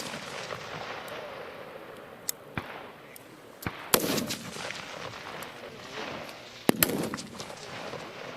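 Rifle fire on an open range: scattered single shots from M4 carbines and M27 infantry automatic rifles, mostly faint and distant, with one loud near shot about four seconds in and two loud shots close together near seven seconds. Each loud shot is followed by a long rolling echo.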